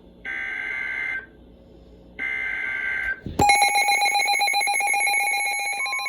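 Emergency Alert System signal: two digital SAME header data bursts, each about a second long with a second's gap. Then, about three and a half seconds in, a loud, pulsing attention tone begins and keeps sounding.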